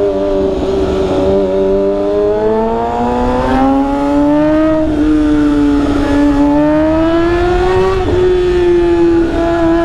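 Kawasaki Ninja ZX-6R inline-four engine running under way as the bike gains speed, its note rising and falling gently with two brief dips about five and eight seconds in, typical of upshifts. Low wind rumble on the microphone underneath.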